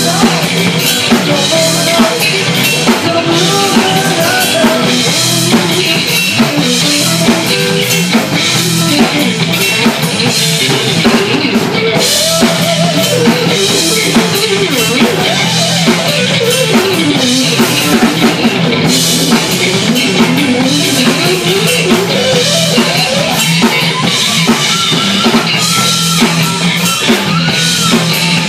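Live rock band playing an instrumental passage: a drum kit keeping a steady beat under electric bass, with an electric guitar playing a lead line whose notes bend and slide up and down.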